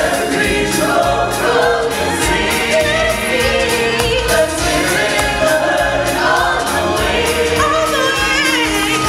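A group of voices singing together in a choir-like style over a band playing a steady beat, from a live stage musical show.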